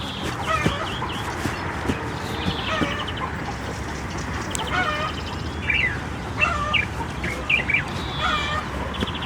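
Chickens clucking, many short calls one after another from several birds, some with a rasping rattle.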